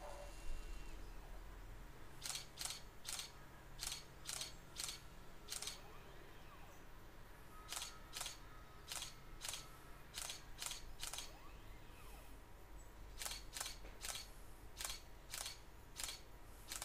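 Canon 550D DSLR shutter firing in three bursts of about seven clicks each: 7-frame exposure brackets, with the gaps between clicks widening toward the end of each burst as the exposures lengthen. Between bursts a faint low motor hum comes from the robotic panorama head turning the camera to the next position.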